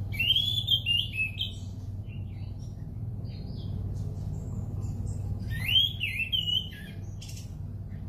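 Orange-sided thrush (anis cendana) singing two short, loud, warbling phrases of twisting whistled notes, about five seconds apart, with softer scattered notes between. A steady low hum runs underneath.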